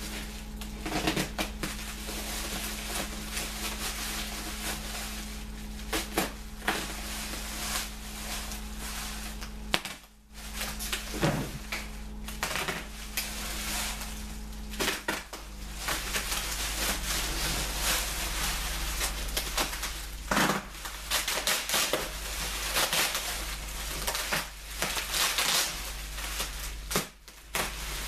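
Plastic bubble wrap crinkling and rustling as it is pulled and handled, with many sharp crackles and brief pauses.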